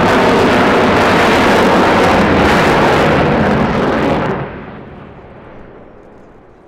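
Boeing F-15QA fighter's twin jet engines, General Electric F110s, blasting in afterburner as the jet climbs away, a dense crackling jet noise. About four seconds in it drops off sharply, leaving a fainter low rumble.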